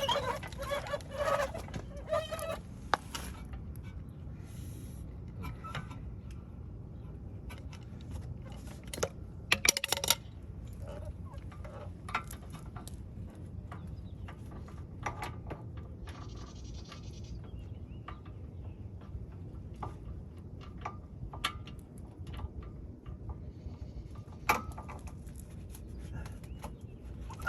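Hand tools clicking and clinking against metal while the rear hub's bolts are worked loose, over a steady low background rumble. There is a short run of squeaky pitched sounds in the first few seconds, and a brief cluster of louder clicks about ten seconds in.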